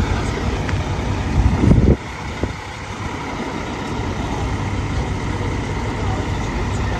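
Steady low rumble of an idling vehicle engine, with a louder buffeting surge of wind on the microphone just before two seconds in that cuts off abruptly.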